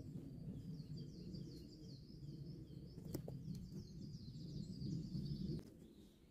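Songbirds chirping in a dense, continuous run over a steady low background noise, with a single sharp knock about three seconds in; both drop away together shortly before the end.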